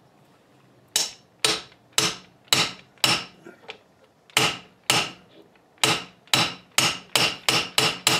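Mallet blows on a piece of aluminum laid over a bearing race cup, driving the race home in a Volvo Penta AQ outdrive housing. The sharp strikes come about two a second, stop briefly about three and a half seconds in, then resume and quicken toward the end.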